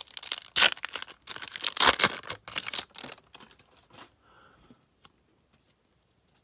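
Wrapper of a 1991-92 Upper Deck basketball card pack being torn open and crinkled, a dense crackling for about three seconds that then dies away to faint rustles.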